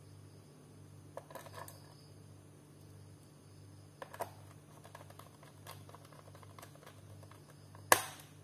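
Small plastic clicks and taps from a laptop's bottom casing being fitted back on, in a few clusters, with one sharp loud click near the end, over a low steady hum.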